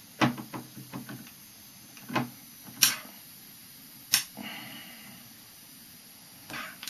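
Handling noise from the opened Tesla turbine assembly: a handful of sharp clicks and knocks of small parts as the load is taken off the motor, the loudest near three and four seconds in, with a faint brief whirr just after the fourth second.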